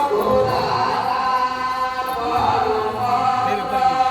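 Voices chanting in long, held notes, like a devotional chant.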